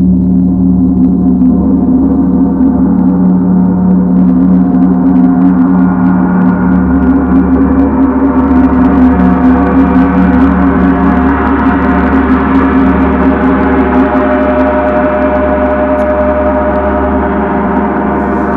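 A 32-inch Paiste gong played continuously with a pair of soft mallets swept in half circles across its face, building into a sustained swelling wash of tone. About four seconds in, high overtones bloom in as the whole face is set vibrating. It is muted by a hand on the face at the very end.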